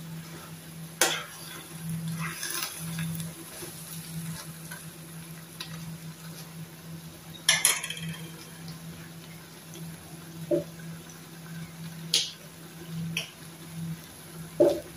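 A metal spoon stirring a pan of fish, mung beans and greens simmering in broth, with several sharp clinks of metal on the pan: one about a second in, a cluster around the middle and a couple near the end. Two duller knocks come in the second half. A steady low hum runs underneath.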